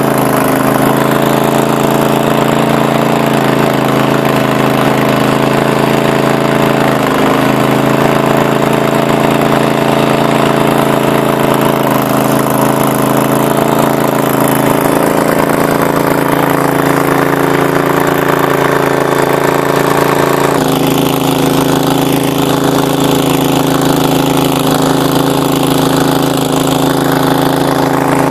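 Small engine of a wildfire skid unit's fire pump running steadily under load while the nozzle sprays water. About twenty seconds in, the engine note changes abruptly and then holds steady.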